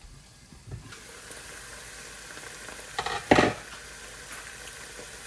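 Food frying in hot red palm oil in a cooking pot, a steady sizzle that comes up about a second in. About three seconds in there are two loud knocks.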